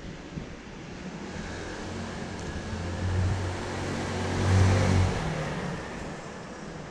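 A motor vehicle passing close by: its engine hum and tyre noise build over several seconds, are loudest about four and a half seconds in, then drop away quickly.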